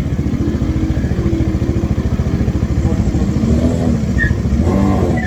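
Bajaj Dominar 400 UG motorcycle's single-cylinder engine running steadily with an even, rapid beat.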